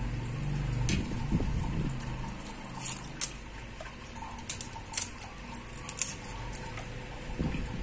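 Scattered small, sharp clicks and crackles of dry garlic and shallot skins being peeled by hand and with a small knife, spaced roughly a second apart.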